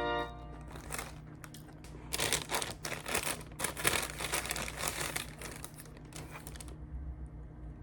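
Wrapping being crumpled and crinkled in irregular bursts for a few seconds, starting about two seconds in. Just before, a held electronic chord cuts off.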